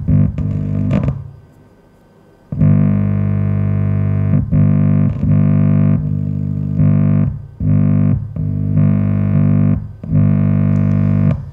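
Music played through a loudspeaker driven by a single-transistor class A amplifier. A short choppy passage fades into a quiet gap, then long held chords start about two and a half seconds in, broken by brief gaps.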